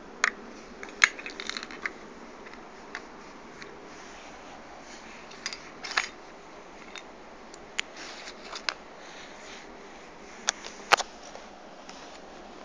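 Mini 4WD RC car clattering over a surface: sharp, irregular plastic clicks and light knocks, a cluster in the first two seconds and single ones later, over a steady low hiss.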